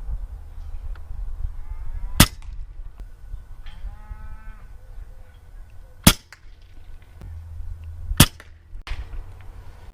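Three shots from a suppressed .22 PCP air rifle (Umarex Gauntlet 2), the second about four seconds after the first and the third two seconds after that. A short low animal call sounds between the first two shots.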